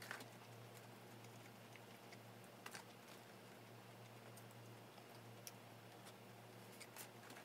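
Near silence: room tone with a faint low hum and a few faint, scattered clicks and rustles as fingers pick at fried chicken in a paperboard box.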